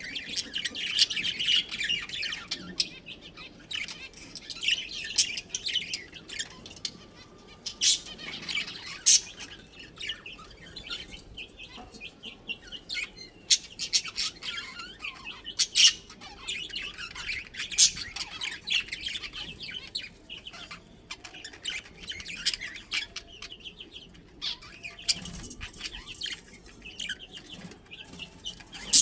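A colony of budgerigars chirping and chattering without pause, with sharp clicks now and then that stand out as the loudest sounds.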